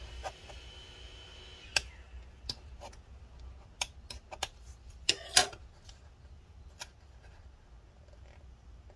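Irregular sharp clicks and taps, about ten in all with the loudest a close pair a little after five seconds in, from a tool and parts being handled during a MacBook Pro battery removal.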